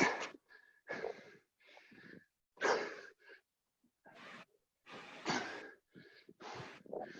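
A person breathing hard and heavily, with loud puffing breaths in and out about once a second, winded from doing burpees.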